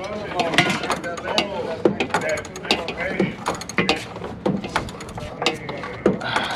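A hand tool clicking in quick, irregular strokes as screws are driven in and tightened on a car's headlight assembly.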